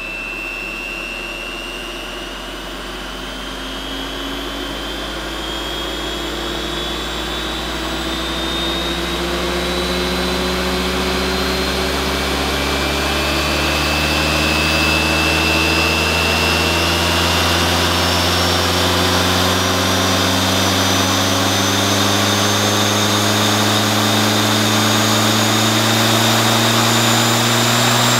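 MEEC Tools electric lawn mower's universal series-wound AC motor and cutting blade spinning up as the supply voltage is raised toward its rated 230 V: a steady motor whine and blade hum rising slowly and evenly in pitch and growing louder.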